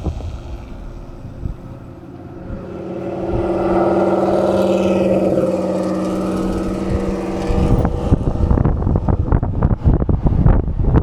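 On a moving electric motorbike, a steady vehicle hum builds after a couple of seconds and holds for about five seconds. Near the end it gives way to heavy wind buffeting on the microphone as the bike picks up speed.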